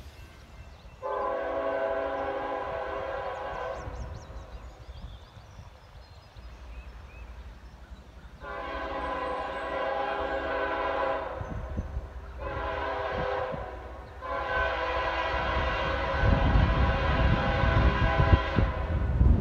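Norfolk Southern freight locomotive's air horn sounding the grade-crossing signal as the train approaches: a long blast, a second long blast, a short one, then a final long blast. A low rumble builds during the last few seconds.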